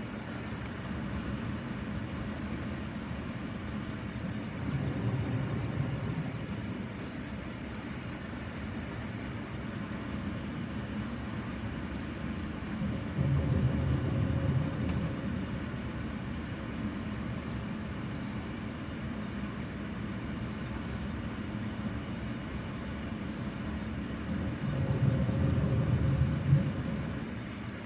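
A person snoring: three low snores about ten seconds apart, each lasting a couple of seconds, over a steady low background rumble.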